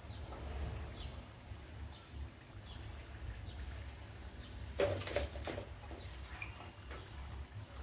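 Hot oil sizzling faintly around maida bondas deep-frying in a pan. A short cluster of clatters about five seconds in as a slotted spatula lifts fried bondas out and knocks against the pan.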